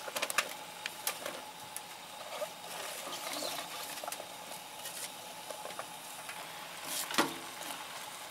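Food sizzling in a Dutch oven while it is stirred, with a utensil clicking against the pot a few times near the start and once louder about seven seconds in.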